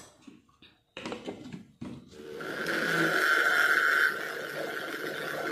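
Electric mixer-grinder motor starting about two seconds in and running steadily with a high whine, churning crushed biscuits and milk into a thick batter; it eases slightly about four seconds in. A few short knocks come before it starts.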